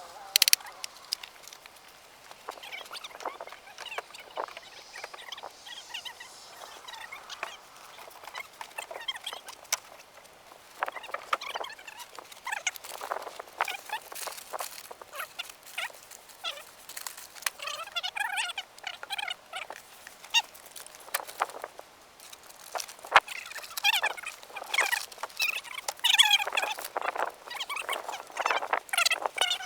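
Irregular clicks, knocks and rustling of things being handled close by, with chirping calls from birds coming and going several times.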